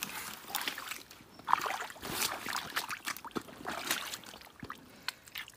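Bare hands digging and groping through wet mud and shallow water for an eel in its burrow, with irregular squelches and sloshes.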